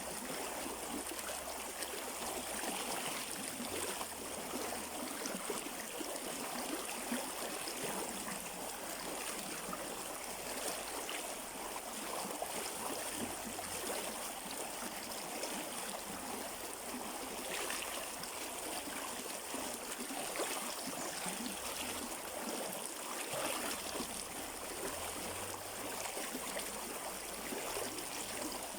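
Stream water flowing and gurgling over rocks, a steady rush.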